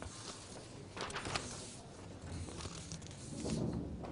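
Sheets of paper rustling as they are handled and leafed through, in short bursts about a second in.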